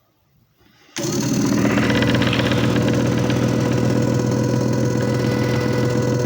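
JFJ Easy Pro disc repair machine switching on about a second in and running steadily, its motor giving a constant hum with a higher whine.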